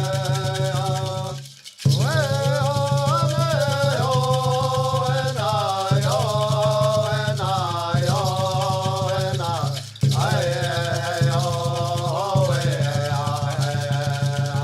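Music: voices singing long, held phrases, broken by short pauses every two to four seconds, over a rattle shaken in a fast, steady rhythm.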